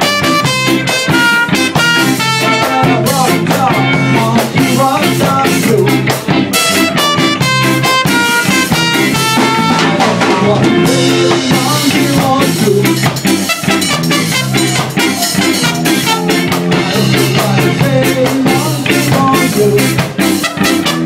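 Live ska band playing a song, with electric guitars and drum kit.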